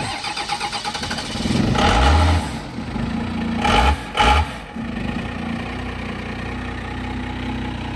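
Compound-turbo 12-valve Cummins diesel in a 1979 Ford Bronco, started cold without a grid heater. It runs, is revved up about two seconds in, gets two quick throttle blips around four seconds, then settles into a steady idle.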